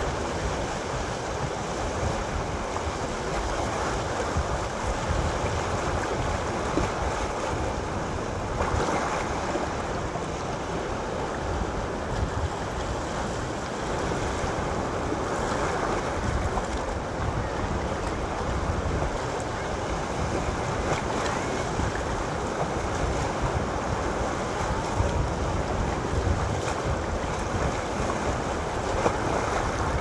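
Sea waves breaking and washing over a rocky shore in a steady surf, with a wave splashing up against the rocks about halfway through.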